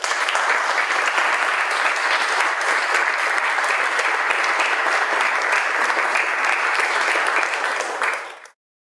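Audience applauding steadily, stopping shortly before the end.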